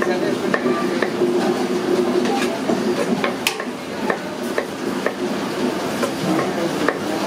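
A knife cutting small brinjals (eggplants) on a wooden chopping board: sharp, irregular knocks of the blade against the wood, about one to two a second, over a steady background din.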